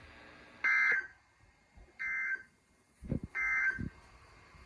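Emergency Alert System end-of-message data tones: three short, identical buzzy digital bursts, about a second and a quarter apart. They are the signal that the broadcast warning message has ended.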